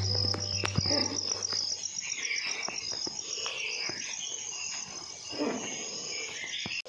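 Crickets chirping in a fast, steady pulse, with scattered other calls around them; a low hum fades out in the first second, and the sound cuts off abruptly near the end.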